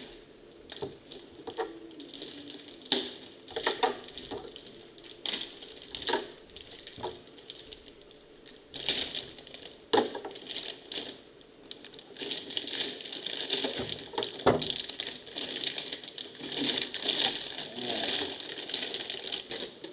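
Clear plastic bag crinkling and rustling as a boxed electronics unit is pulled out of it, with scattered sharp knocks from the unit being handled and set on a desk.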